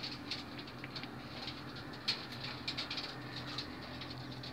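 Racing pigeons shifting about in a wire-mesh transport cage: scattered light clicks and scratches, over a faint steady hum.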